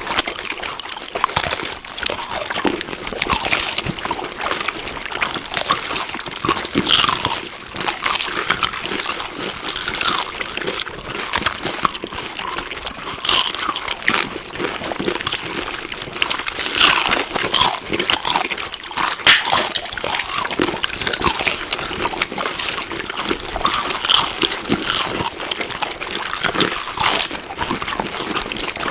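Close-up eating sounds: steady crunching chews of a crisp food mixed with wet mouth sounds, a dense run of crackly bites without pause.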